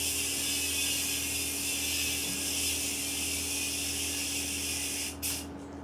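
Yo-yo spinning on its string, a steady high whirring hiss that stops abruptly about five seconds in, followed by a brief second whir.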